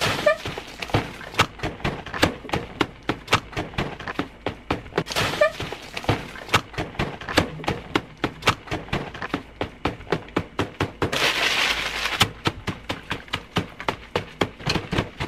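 Food being beaten and smashed on a table: a fast, steady run of smacks and thuds, about two to three a second, with a hissing rush lasting about a second near eleven seconds in.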